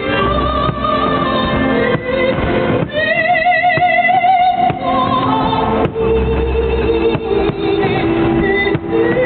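Music with a singer holding long notes with heavy vibrato, each held a second or two before changing pitch.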